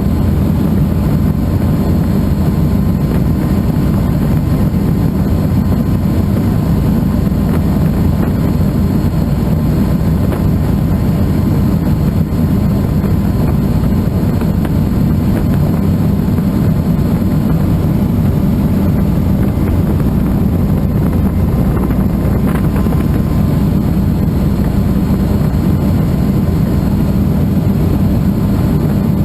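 Helicycle kit helicopter in cruise flight, heard from the cockpit: its Solar T62T-32 turbine engine and rotor run steadily as a loud, unchanging low drone with a thin steady whine above it.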